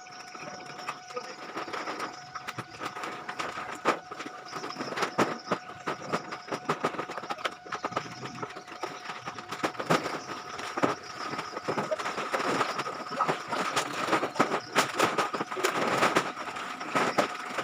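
Sacks of plastic waste rustling, crackling and thudding as they are dragged and tossed, a dense run of irregular knocks and crackles that grows busier in the second half. Beneath it runs a steady drone of several high tones.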